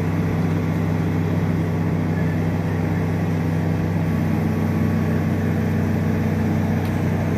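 Excavator's diesel engine running steadily with a low, even drone and no revving.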